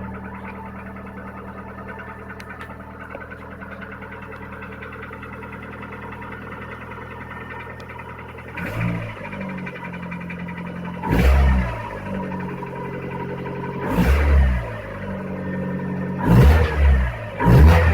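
Mazda 626 engine idling steadily, then revved in short throttle blips from about halfway through, about five of them, the later ones coming closer together. This is a cold start after an overnight stand, when the owner hears a knock that fades within about half a minute.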